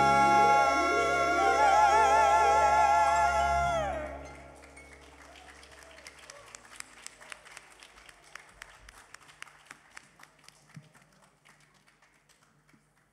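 Women singing a long held closing note with vibrato over a band backing with a repeating rising figure; the music stops about four seconds in. Then light, scattered audience clapping that thins out and dies away.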